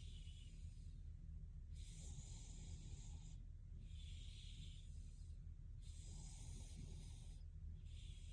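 A sleeping young woman's breathing: soft, hissy breaths about every two seconds, four or so in all, over a low steady hum.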